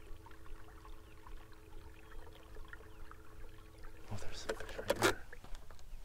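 A steady electric hum from a bow-mounted trolling motor, several even tones together, cuts off about four seconds in. Then comes a short cluster of knocks and handling sounds on the boat, over faint water lapping at the hull.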